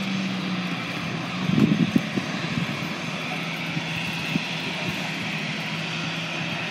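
Airbus A321 jet engines running steadily while the airliner waits at the far end of the runway: a steady hum with a high whine. A short cluster of loud knocks and rumbles about a second and a half in.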